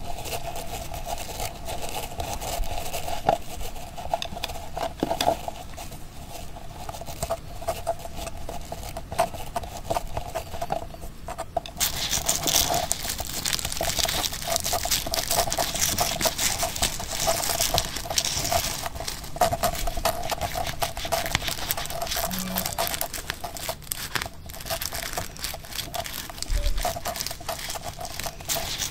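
Continuous crinkling and rustling of material handled close to the microphone, over a steady tone; about twelve seconds in the rustle turns hissier and brighter.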